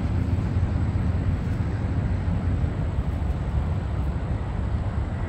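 Steady drone of highway traffic, a continuous low rumble with no single vehicle standing out.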